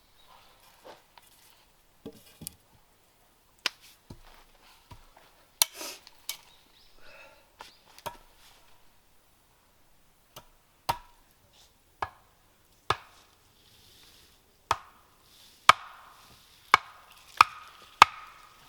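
Wood being chopped in sharp single blows, spaced irregularly at first, then coming about once a second and harder near the end.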